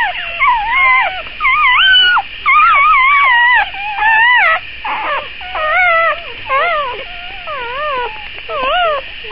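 One-day-old Dalmatian puppies whimpering and squealing: a rapid string of high, wavering cries, a dozen or so with short gaps between them.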